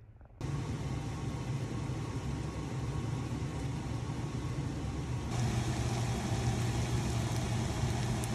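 A steady low motor hum with a noisy rush over it. It starts abruptly about half a second in, and about five seconds in it gets louder and brighter.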